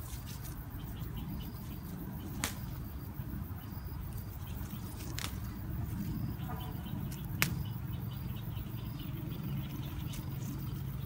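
Chilli stems snapping as the peppers are picked by hand: three sharp snaps a few seconds apart, over a steady low hum and faint short high chirps.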